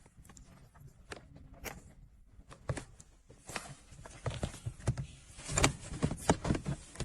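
Plastic interior trim pieces and wiring connectors being handled and fitted: a string of irregular clicks and knocks, sparse at first, then busier and louder from about four seconds in.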